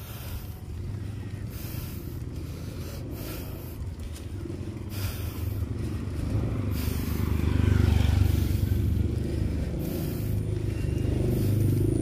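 Low rumbling road and wind noise from a bicycle ride, swelling to its loudest about eight seconds in.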